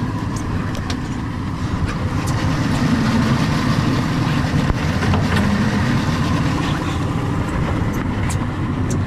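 An engine running steadily, a low rumble with scattered clicks and knocks over it.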